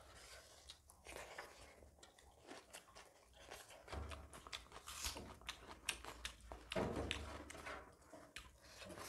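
Soft, close-up eating by hand: chewing and lip smacks, with small clicks and scrapes of fingers gathering rice on stainless steel plates.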